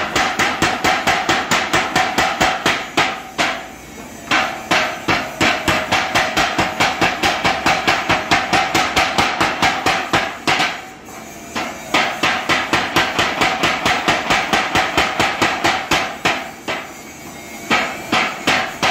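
Mechanical power hammer pounding red-hot steel in rapid, evenly spaced blows, about five a second. The runs of blows stop briefly three times: a little before 4 seconds in, around 11 seconds in, and around 17 seconds in.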